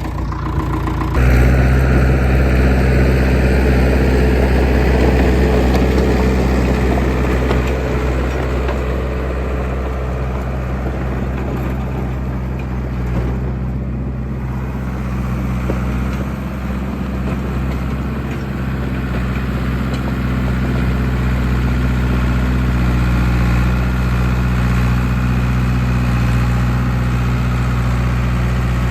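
John Deere 450B bulldozer's engine idling steadily as it warms up after a cold start, getting louder about a second in.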